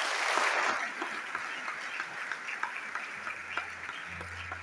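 Audience applause in a large hall, loudest at the start and thinning into scattered individual claps. A low steady hum comes in near the end.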